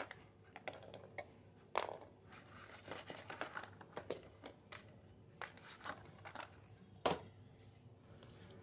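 Clear plastic pen packaging and a pen being handled on a desk: scattered crinkles, taps and clicks, the sharpest click about seven seconds in.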